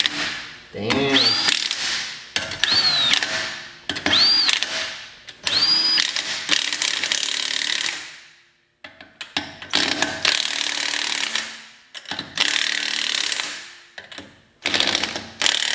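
Cordless impact wrench run in about eight short bursts, tightening the wheel's lugs. The early bursts each open with a motor whine that rises and falls. The bolts are driven hard enough that he reckons they are over-torqued.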